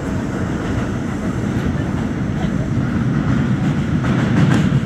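New York City subway train in motion: a steady rumble of wheels and running gear on the track, with a few brief clicks near the end.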